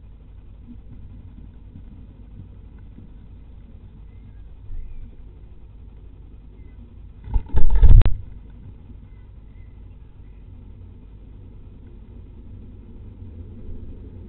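Steady low rumble heard inside a great tit nest box, with a few faint short chirps from the nestlings. A loud bumping scrape on the box comes about halfway through and lasts under a second, after a smaller knock a few seconds earlier.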